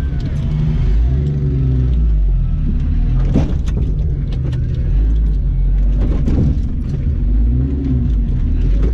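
Jeep Cherokee XJ engine running at low revs, heard from inside the cab as the Jeep creeps over rough ground on an off-road course, with interior rattles and a couple of sharp creaks or knocks from the body and suspension.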